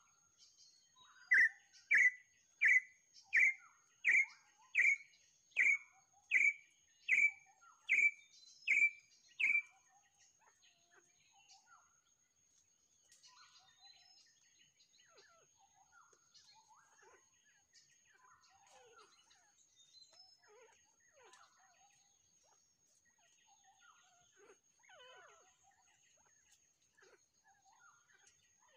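A bird gives a series of about twelve loud whistled calls, a little under one a second, the series climbing slightly in pitch. It stops after about ten seconds, and only faint scattered chirps follow. A faint steady high-pitched tone, like an insect, sounds underneath.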